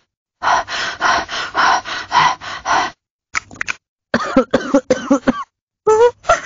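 Loquendo TTS 'Selin' voice's built-in coughing sound effect: a run of about seven rough coughs, then after a short break a string of shorter coughs or hacks with a bending voiced pitch.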